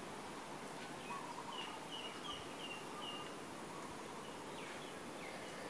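Quiet outdoor background with a bird calling a run of about six short, even notes, starting a little after a second in, then a few faint falling chirps later.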